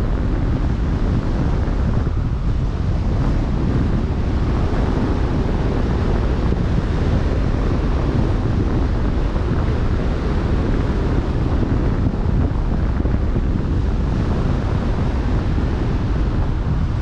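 Steady wind buffeting the microphone, a low rumble, over the continuous rush of the open sea.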